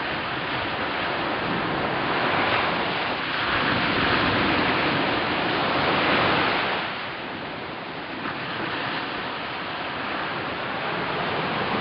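Sea surf breaking on a small beach and washing up the shore: the sound of one wave swells and peaks about six seconds in, drops away sharply, and another builds near the end.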